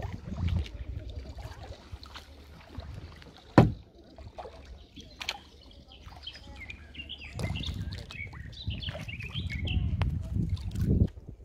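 Kayak paddling on open water, with low rumbling gusts of wind on the microphone and one sharp knock about three and a half seconds in. Small birds chirp in the second half.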